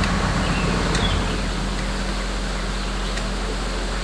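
A stuck full-size van's engine idling, then shutting off about a second in, with a click just before it stops. A steady hiss runs on underneath.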